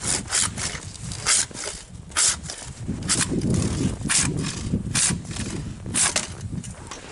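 Hand saw cutting through a snow-covered conifer limb, with rasping strokes about once a second. Through the middle the limb shakes and rustles under the cut.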